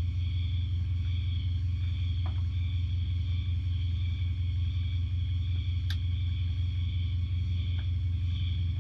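A steady, low engine-like drone with a fine rapid pulse, under a constant high-pitched whine, with a single sharp click about six seconds in.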